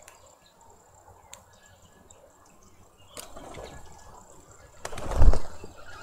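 Faint garden birds chirping, then about five seconds in a brief loud flutter of wings with a low thud close to the microphone, as a bird arrives at the feeder.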